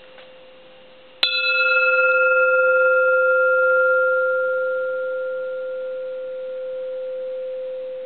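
Small bronze Buddhist hanging bell struck once about a second in, then ringing with one strong main tone and several higher tones. The highest tones die away within a few seconds, while the main tone rings on, slowly fading.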